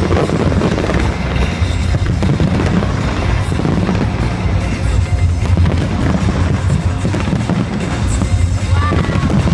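Fireworks bursting and crackling in rapid succession, a continuous low rumble of booms, mixed with loud music.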